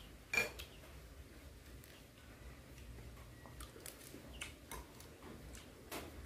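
Close-up eating sounds from a person chewing a boiled beef tendon dish with fresh greens: scattered wet mouth clicks and smacks, the sharpest about half a second in.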